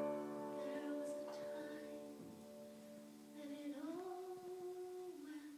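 Keyboard accompaniment of a stage musical holding sustained chords. About three and a half seconds in, a single held note slides up, holds for about a second, and drops away near the end.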